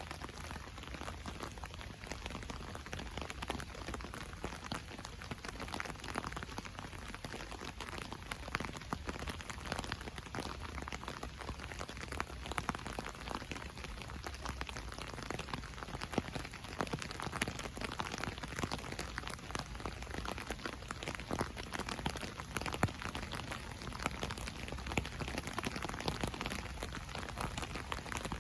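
Rain falling on an umbrella: a steady patter of many drops tapping the canopy, with no letup.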